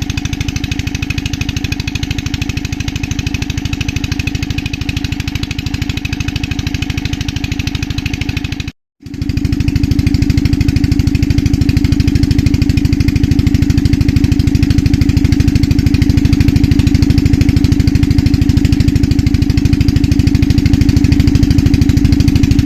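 An engine running steadily with a fast, even pulse. It cuts out for a moment about nine seconds in, then comes back slightly louder.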